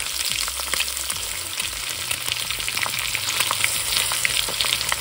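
Eggs frying in oil in a cast iron wok on high heat: a steady sizzle with many small pops and crackles.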